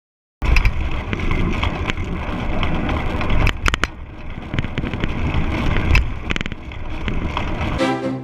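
Wind rumble on the microphone and road noise of a bicycle ride, with scattered clicks and rattles.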